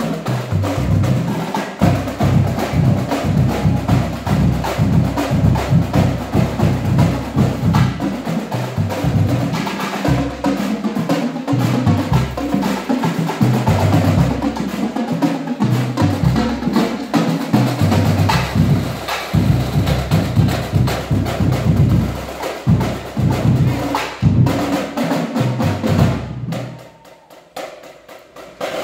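Marching drumline playing together: snare drums, tenor drums and bass drums in a fast, dense rhythm. The playing stops briefly near the end, then starts again.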